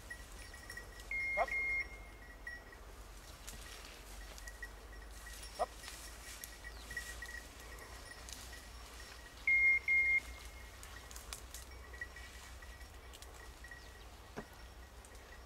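Two high-pitched double beeps at one steady pitch, about eight seconds apart, the first a second in and the second near the middle, over a quiet outdoor background with a couple of faint clicks.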